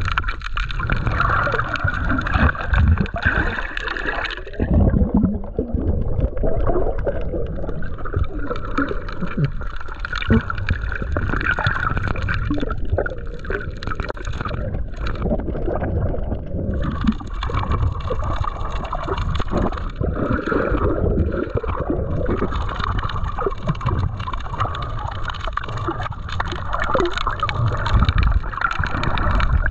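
Underwater sound picked up by a snorkeler's GoPro: water gurgling and sloshing around the camera. A steady high hum drops out about four seconds in and returns past the middle.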